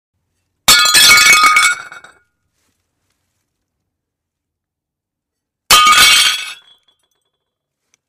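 A plate smashing hard: a sharp crash, then shards clattering and tinkling for about a second before dying away. A second plate smashes the same way about five seconds later.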